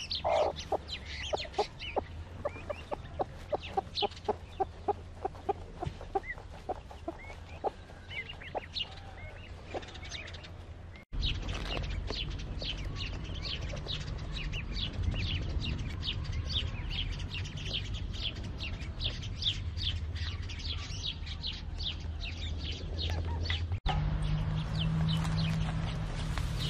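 A broody hen clucking steadily, about two or three low clucks a second, among the high peeping of newly hatched Fayoumi chicks. About eleven seconds in, the clucks give way to a dense, busy run of chick peeps over a low hum.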